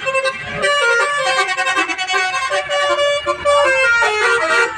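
Basuri telolet horns on a bus playing a melody: a quick run of loud, bright horn notes stepping up and down in pitch, several sounding together.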